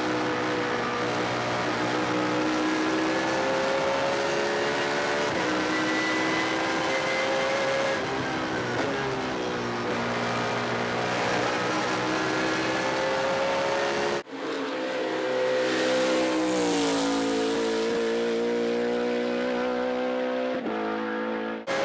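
BMW Z4 GT3 race car's V8 heard from inside the cockpit at full throttle, revs climbing and dropping at each quick upshift. About 14 seconds in it cuts to a race car heard from the roadside, accelerating up the road with another gear change near the end.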